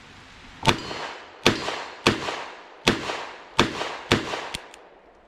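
Smith & Wesson Model 64 .38 Special revolver fired six times in an unhurried string, each shot sharp with a short echoing tail.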